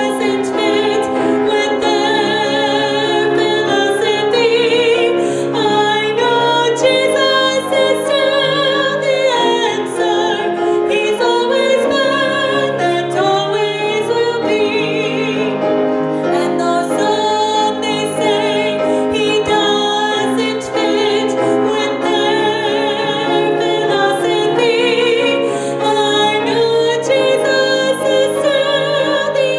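A woman singing a solo through a microphone with vibrato, accompanied by piano.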